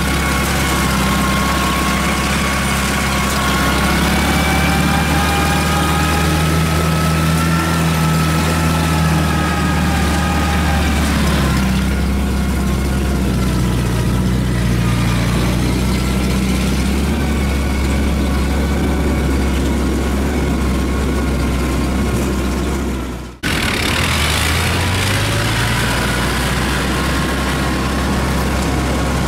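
A farm machine's engine running steadily, with a whining tone above it that wavers in pitch. Near the end the sound breaks off for an instant, then an engine rises in pitch as a tracked rice carrier moves off.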